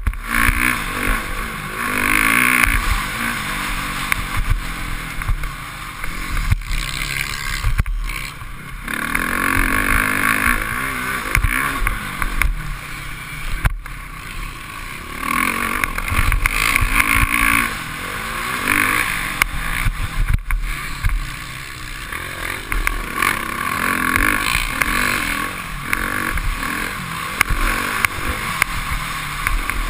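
Motocross bike engine revving hard and easing off over and over as the rider races the track, the revs rising and falling every few seconds. Wind rumble and knocks on the helmet-mounted microphone run underneath.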